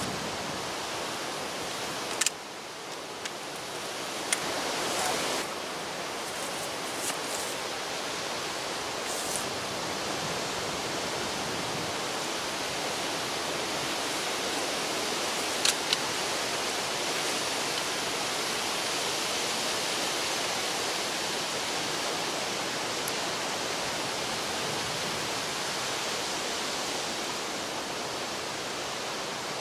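A steady rushing outdoor noise, with a few faint clicks and knocks from a crossbow being handled. The sharpest click comes about halfway through.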